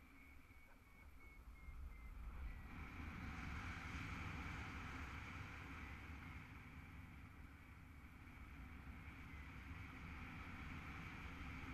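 Wind rushing over an action camera's microphone in paraglider flight: a steady low rumble with airy hiss that grows louder about two and a half seconds in.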